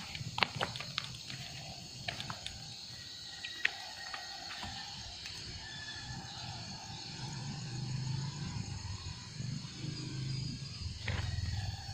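Steady chirring of insects, with a few sharp clicks and snaps of footsteps in the first seconds, and a low rumbling drone that swells in the second half.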